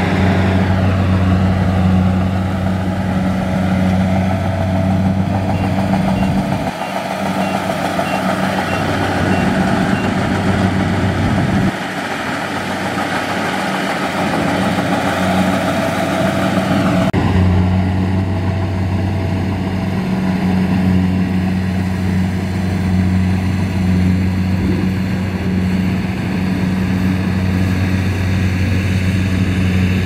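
Kubota DC-70 Plus combine harvester running steadily while cutting and threshing rice: a loud, steady engine hum over dense machinery noise. The low hum drops away about 7 seconds in and comes back about 17 seconds in.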